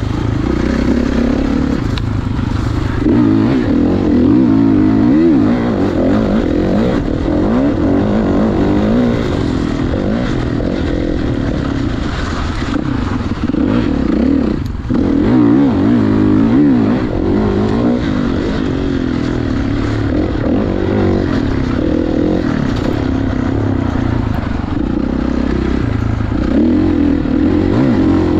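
A 2016 Kawasaki KX450's single-cylinder four-stroke engine, stock apart from a spark arrestor, revving up and down under way, its pitch rising and falling with the throttle. The engine note drops briefly about halfway through.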